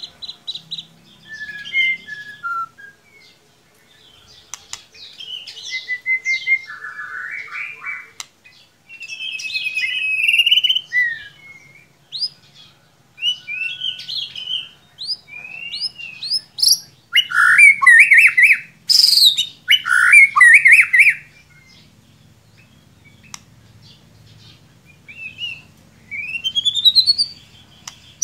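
White-rumped shama (murai batu) singing a varied song of clear whistles, quick rising sweeps and buzzy, chattering notes, delivered in bursts with short pauses; the loudest phrases come about two-thirds of the way through.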